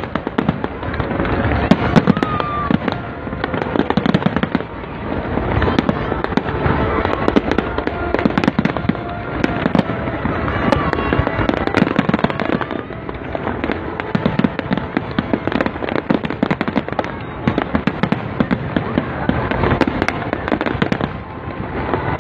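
Fireworks display: aerial shells bursting in a dense, continuous barrage of bangs and crackles.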